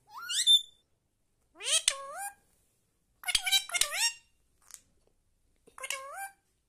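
Indian ringneck parrot calling: four short bouts of high-pitched, upward-sweeping calls. The bout a little after the middle is the longest.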